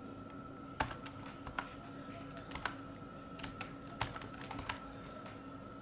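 Computer keyboard being typed: irregular separate keystroke clicks, several seconds of digits being entered, over a faint steady electrical hum.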